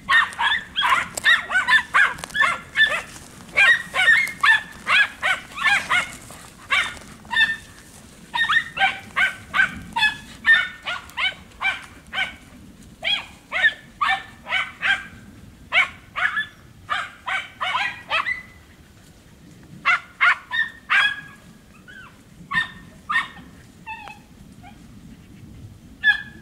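Podenco Andaluz hunting hound giving tongue in the scrub: rapid, high-pitched yelping barks, about three a second, in runs with short pauses and sparser near the end. This is a hound working a rabbit's scent.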